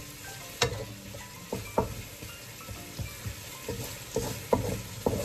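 Carrots sizzling in a nonstick wok while a wooden spatula stirs them, with a faint steady hiss broken by about eight irregular scrapes and taps of the spatula against the pan.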